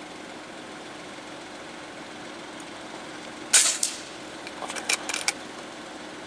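A single sharp report from a PCP air rifle, the Kalibrgun Argus, about three and a half seconds in. It is followed about a second later by a short run of smaller clicks, over a steady faint hum.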